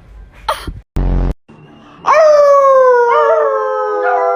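A dog howling: one long, loud howl that begins about two seconds in and slides slowly downward in pitch. It follows a brief burst of noise about a second in.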